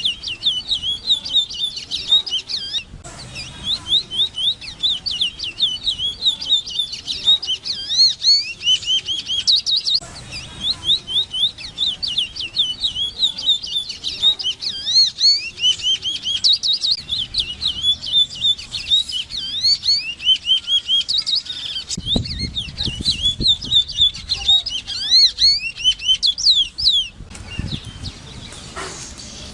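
Large-billed seed-finch (Sporophila crassirostris) singing: a long, fast run of clear whistled notes sweeping up and down, breaking off briefly near the end. A low rumble sits under the song for a few seconds in the second half.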